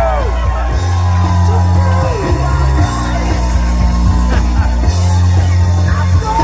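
Loud rock music with a heavy, stepping bass line, played by a DJ, with shouts over it.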